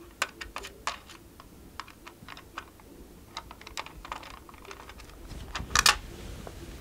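Small screwdriver working a screw out of a model car's black plastic display base: light, irregular clicks and ticks of the tip and plastic, with a louder clatter of a few strokes near the end.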